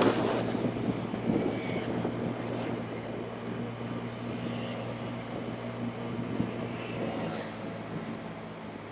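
Small motorbike engine running steadily at cruising speed, a low even drone under a rush of wind and road noise on the camera's microphone, easing off slightly near the end.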